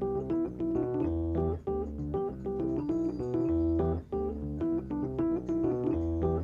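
Background music played on a keyboard instrument: chords and a melody over a recurring bass line.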